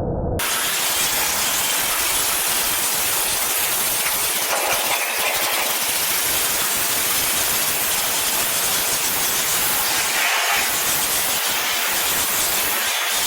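Pressure washer jet spraying water onto corrugated barn tin: a steady, loud hiss that cuts in about half a second in, with its tone brightening briefly a couple of times.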